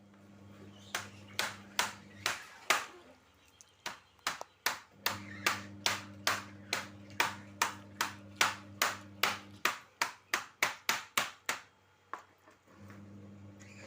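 Kecombrang (torch ginger) stem being struck over and over to get its juice out: a few spaced sharp knocks, then a steady run of about three knocks a second that stops shortly before the end.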